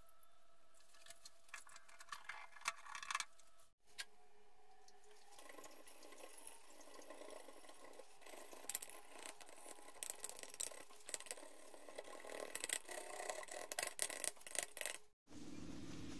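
Scrubbing and scraping on a Suzuki GS150's aluminium engine side cover as its old, lifting paint is worked off: an irregular scratchy rasp with small clicks, busier in the second half. Near the end it cuts to a steady low hum.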